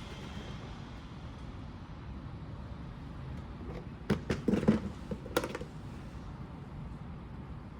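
Hard objects being handled: a short cluster of knocks and clatter about four to five and a half seconds in, over a steady low rumble.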